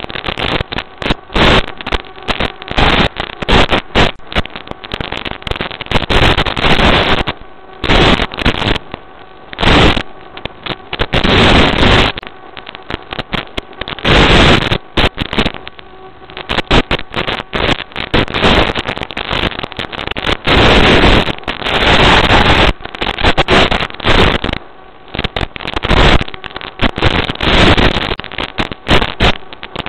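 Harsh crackling static from an FPV racing drone's analog video link, bursting in and out irregularly as the signal breaks up, with faint steady tones beneath.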